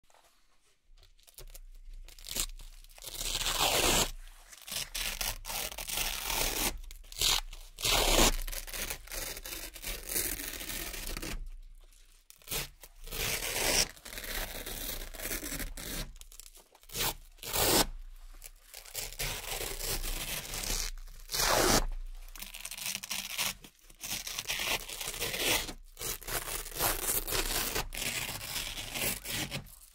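Circular Velcro hook-and-loop patches being peeled off a Velcro board one after another: a crunchy tearing rasp for each pull, each lasting a second or two, with short gaps between pulls.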